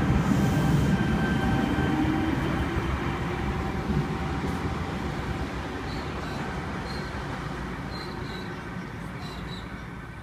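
V-set double-deck electric train pulling away from the platform, its wheels and running gear rumbling with a thin whine over it, fading steadily as it departs.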